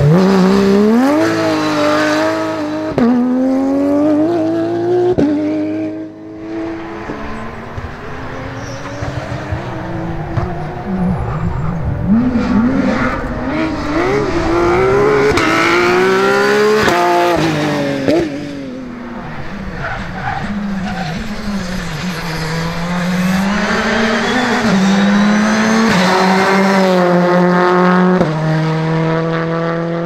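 Rally cars at full speed on a tarmac stage, one after another, among them a Porsche 911 GT3's flat-six. The engine pitch climbs and drops again and again with gear changes and lifts off the throttle, and the sound changes abruptly several times as one car gives way to the next.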